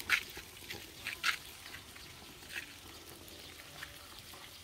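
Goat biting and chewing a carrot fed through a wire fence: a few short crunches a second or more apart, with faint crackling between.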